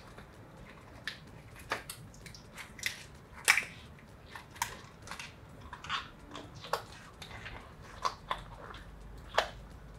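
Deflated rubber balloon being stretched and worked in the hands to force a ping pong ball inside it: a string of short, irregular rubbery rubs and squeaks, about one or two a second.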